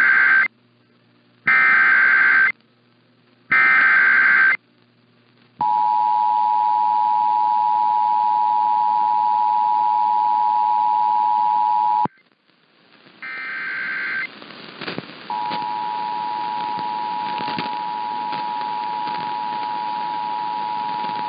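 Emergency Alert System tones on a radio broadcast: three short screeching SAME header data bursts about a second apart, then the two-tone attention signal held steady for about six seconds before cutting off. After a brief gap comes one more data burst, and then a quieter two-tone attention signal starts again and runs on.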